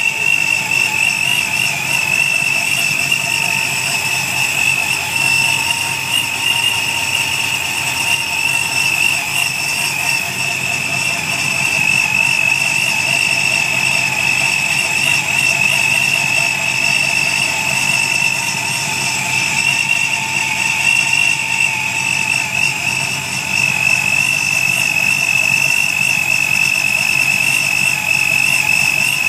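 Supercharged Chevrolet Camaro V8 with a centrifugal supercharger idling steadily on its first start after the supercharger build, a steady high whine riding over the engine's rumble.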